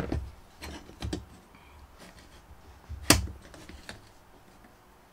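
Sharp metal clicks and taps from needle-nose pliers working at a hard drive's rust-seized steel mounting bracket, with the loudest click about three seconds in.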